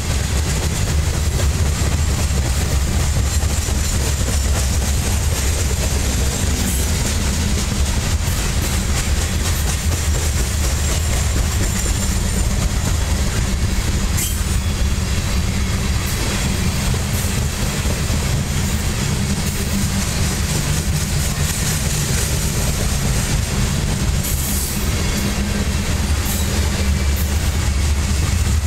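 Covered hopper cars of a freight corn train rolling past: a steady low rumble of steel wheels on the rails.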